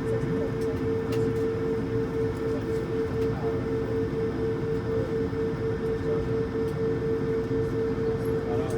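Steady cabin drone of an Airbus A220-300 airliner, its engine noise carrying a constant hum with a fainter lower tone underneath.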